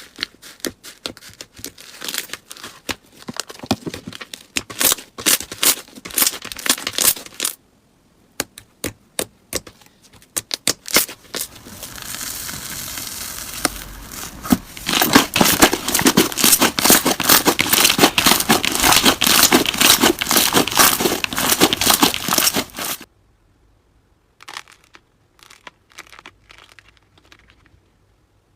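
Slime being squeezed and pressed by hand, making crackling and popping clicks. The clicks come thick in two long stretches, with sparser pops between and near the end, and a short steady hiss about twelve seconds in.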